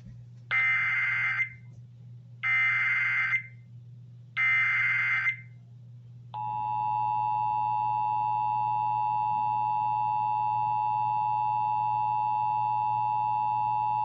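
Emergency Alert System signal: three short bursts of SAME digital header data tones, about two seconds apart. About six seconds in, the steady two-tone EAS attention signal starts and holds. It heralds a National Weather Service flash flood warning.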